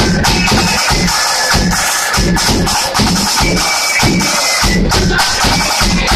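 Loyalist flute band playing loud: flutes carry the tune over a regular beat of bass drum and snare drums.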